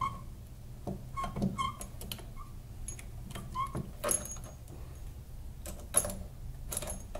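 Small metal hardware clicking and clinking as screws and rubber feet are handled and fitted to a stone base plate, with a few sharper knocks about four and six seconds in. A faint steady low hum runs underneath.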